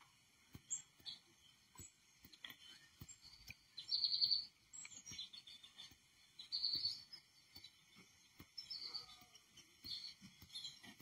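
Small songbirds chirping in short, high calls, played back from a television's bird video. The loudest bursts come about four seconds in and again near seven seconds.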